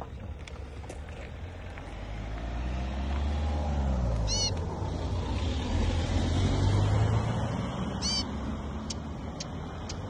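A motor vehicle passes close by, its engine rumble sliding in pitch and loudest about six to seven seconds in. A small bird gives two short high chirps, about four seconds in and again near the end.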